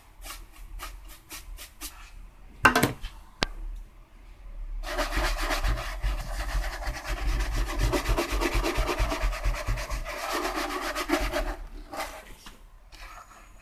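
Polishing solution being rubbed by hand onto the black plastic cabinet of a Panasonic cassette radio recorder, in rapid back-and-forth strokes. There is a sharp knock about three seconds in, and the rubbing is steady and busiest from about five to twelve seconds.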